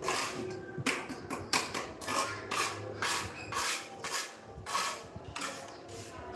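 Repeated short scraping strokes of a hand tool against a corbel ornament, about two a second and uneven in timing.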